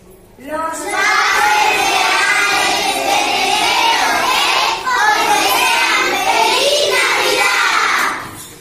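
A class of young children singing together in chorus, in two phrases with a short break about halfway, stopping shortly before the end.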